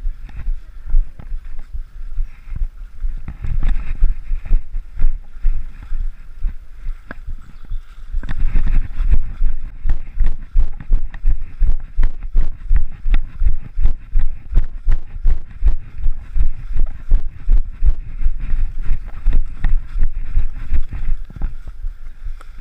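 A runner's footfalls on a trail of dry leaves and mud, a steady thud about three times a second from the running stride, with wind rumbling on the microphone.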